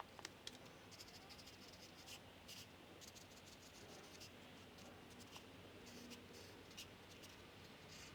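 Near silence: room tone with a few faint scratches and light ticks.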